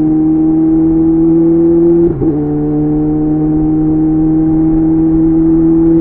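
Kawasaki ZX6R inline-four sport bike running through a Leo Vince aftermarket exhaust at high revs, pulling hard with its pitch slowly rising. About two seconds in, a quick upshift breaks the note briefly, and it picks up again slightly lower and climbs on.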